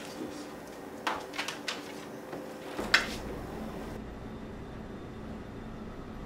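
Refrigerator door being pulled open: a few light knocks, then a sharp click about three seconds in, followed by a steady low hum.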